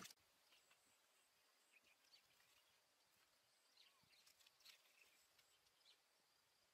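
Near silence: faint outdoor ambience with scattered soft, high ticks and chirps.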